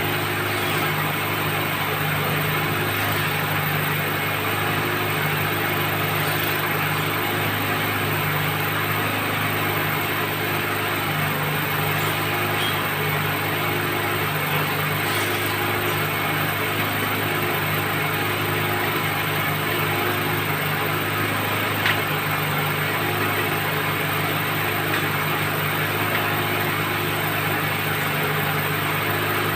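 Engine of a well-drilling rig running steadily at constant speed while boring. There is one short click about three quarters of the way through.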